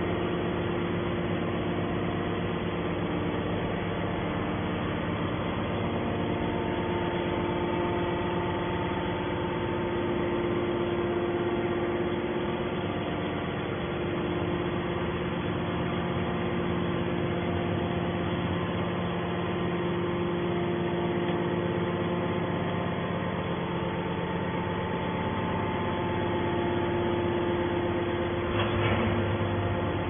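Hydraulic scrap-metal baler's power unit humming steadily, its electric motor and pump running while the press stays at rest. The hum is even, with several held tones in it.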